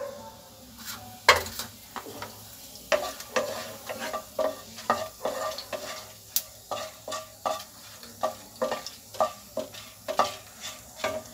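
Cumin seeds and dried red chillies sizzling in hot mustard oil in a nonstick wok, with a wooden spatula stirring and knocking against the pan. From about three seconds in, the spatula strokes come at about three a second.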